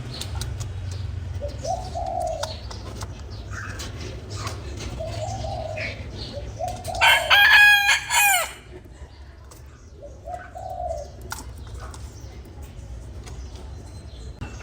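A rooster crows once, loudly, about seven seconds in, the crow lasting about a second and a half and dropping at the end. Short, low calls from fowl come before and after it.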